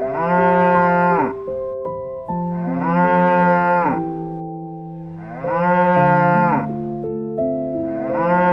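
Cow mooing: long calls about every three seconds, each with a short rise in pitch at the start and a drop at the end. One call is ending at the start, two follow, and a fourth begins near the end. Background music with held notes plays underneath.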